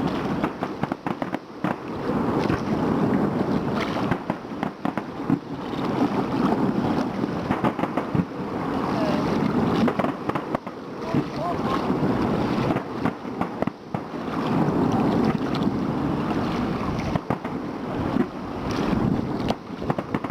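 Fireworks display: many sharp bangs and crackles, irregular and frequent, over a continuous rumbling background noise.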